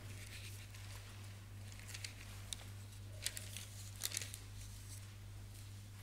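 Thin Bible pages being turned: a few short papery rustles and flicks, bunched in the middle, over a steady low hum.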